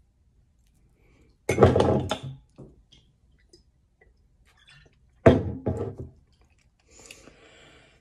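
A glass liquor bottle knocks loudly against a table twice, about four seconds apart, each knock ringing briefly. Near the end there is a fainter breathy sound, a breath out after a swig from the bottle.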